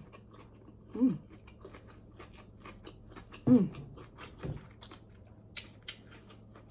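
Someone eating king crab legs close to the microphone: scattered small clicks and cracks of shell, with chewing. Two short hummed sounds come about a second and three and a half seconds in.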